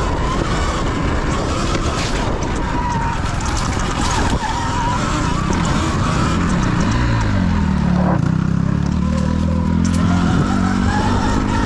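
Sur Ron electric dirt bike ridden on a dirt trail: a thin wavering motor whine that climbs near the end, over a steady rush of wind on the microphone. A lower engine hum with overtones joins about six seconds in, rising and falling.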